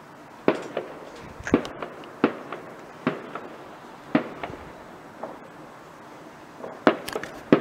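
Aerial fireworks bursting: a string of sharp bangs at uneven gaps of about a second, with a quick pair of bangs near the end.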